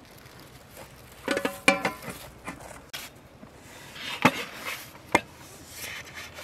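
Large metal tray lids clanging as they are handled and set over a big cooking pot. There is one ringing metallic clang about a second and a half in, then two sharp knocks later on.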